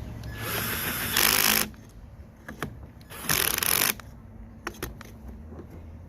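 Power driver with a Torx 30 bit running in two short bursts, the first about a second long and the second shorter, as it drives in the muffler screws.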